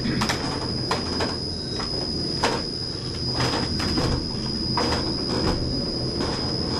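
Windmill grinding machinery running under motor drive: the millstones and wooden gearing turn with a steady low rumble and a steady high-pitched whine, broken by irregular knocks a few times a second.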